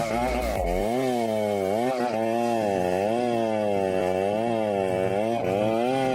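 Stihl MS 881 chainsaw running at full throttle under load in a felling cut through a large tree trunk. The engine's pitch dips and recovers over and over, about once a second, as the chain works in the wood.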